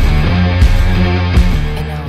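Rock music with distorted guitar and a drum hit about every three-quarters of a second, beginning to fade out near the end.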